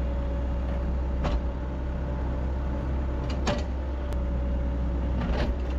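Hydraulic excavator's diesel engine running steadily under load, with a steady whine over it and a few sharp knocks as a boulder is set down and handled.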